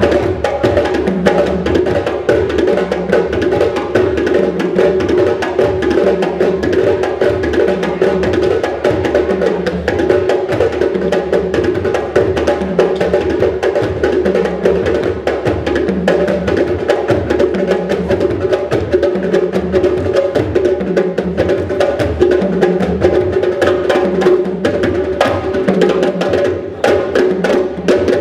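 Music with a steady, dense percussive beat.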